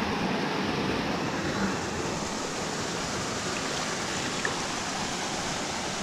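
Steady rush of river water flowing over rocks and through a small cascade.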